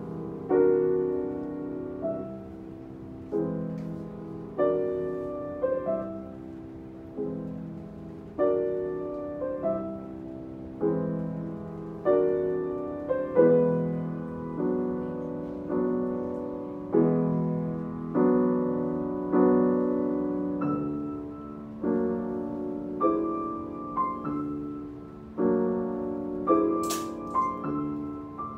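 Steinway grand piano played solo: chords struck a little more than once a second, each ringing and fading before the next.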